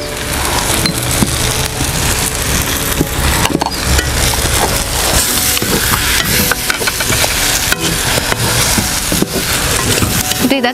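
Onions, tomatoes and spice powders sizzling as they fry in oil in a metal wok. A steel slotted ladle scrapes and knocks against the pan as the masala is stirred, with the scraping growing busier after the first few seconds.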